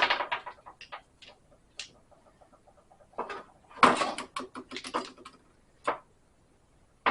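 Metal tools and parts being handled: clusters of sharp clinks, knocks and clatter, the busiest stretch a rapid run of clinks from about 4 to 5 s in.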